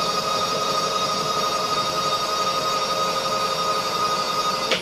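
Milling machine table power feed motor running with a steady whine as it drives the table across, then stopping with a click near the end.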